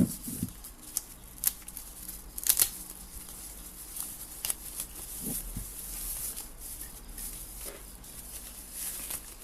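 Handling noise from a small HP S5000 desktop speaker being picked up and turned over: scattered sharp clicks and taps with light rustling in between.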